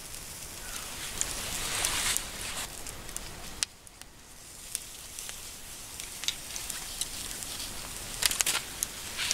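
Beef steak sizzling on a wire grill over charcoal, with scattered pops and crackles. The sizzle swells about a second in, drops off suddenly a little past the middle, then runs on with sharper crackles near the end.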